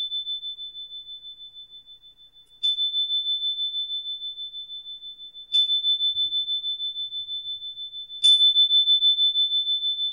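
A small high-pitched bell struck four times, about every three seconds. Each stroke rings on and fades with a wavering pulse, and the last is the loudest. It is rung as a ritual signal just after the consecration words of a spoken Mass.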